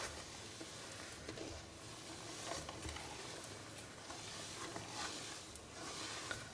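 Wooden spatula stirring hot, thickening soap in a stainless steel pot, faint sloshing and scraping with a few light knocks against the pot. The soap is being stirred on high heat with salt while it separates and starts to curdle.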